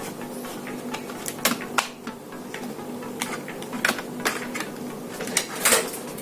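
Sharp plastic clicks, several spread irregularly with the loudest near the end: the snap-fit clips of an ASUS X453MA laptop's plastic case releasing as the case is pried apart by hand.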